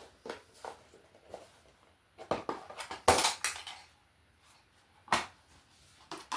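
Small tools and objects being handled and set down on a workbench: scattered clicks and knocks, with a louder rattling clatter about two to three and a half seconds in and a sharp knock near five seconds.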